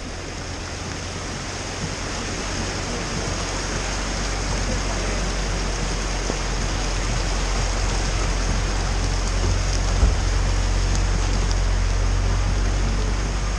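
Van driving slowly through deep floodwater: a steady rush of churning water over a low engine hum, growing slowly louder, with one brief knock about ten seconds in.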